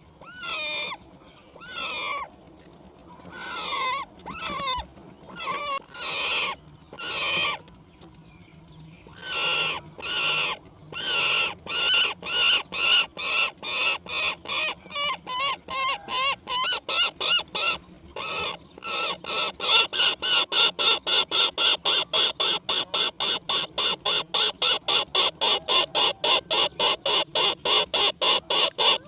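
Roller chick calling repeatedly, likely begging: separate calls about once a second at first, then a fast, even run of short calls two or three a second that gets louder toward the end.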